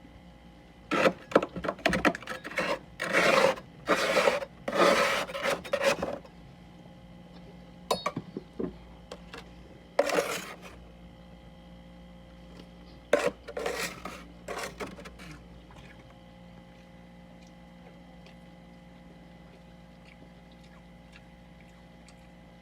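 Freezer frost being scraped off in short rasping strokes, in clusters for roughly the first fifteen seconds. After that only a faint steady hum remains.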